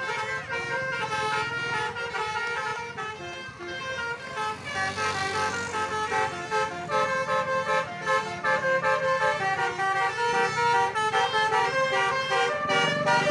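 Bus 'telolet' musical horn playing a tune of quick stepped notes, with a low rumble underneath.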